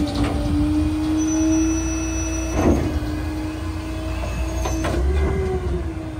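Leach rear-loader garbage truck's hydraulics running with a steady whine while the packer works the dumped load, with three sharp metal clunks about two seconds apart. The whine rises briefly in pitch about five seconds in, then settles back.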